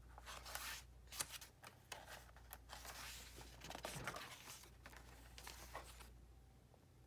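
Paper pages of a handmade journal being turned by hand: irregular rustling and flicking with a few sharp clicks, dying down about six seconds in.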